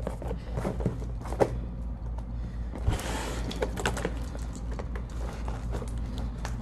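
Cardboard packaging being handled and cut open: scattered knocks and clicks, with a short scraping rustle about three seconds in, over a steady low hum.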